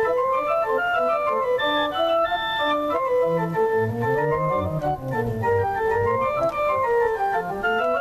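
Solo keyboard music from a grand-style piano keyboard: a flowing melody of smoothly held notes over rolling bass arpeggios that climb and fall back.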